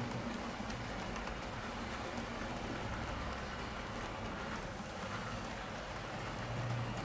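HO-scale model passenger coaches rolling along the track: a steady rumbling rattle of small metal wheels on the rails, with a faint low hum.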